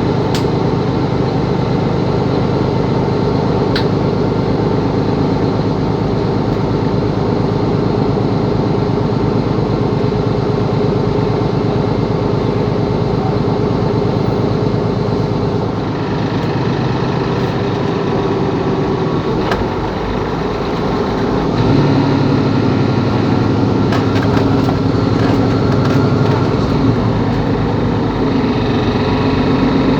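Mercedes-Benz Capacity L articulated city bus's diesel engine running steadily. It eases off a little past the middle, then pulls louder again a few seconds later, with a few faint clicks along the way.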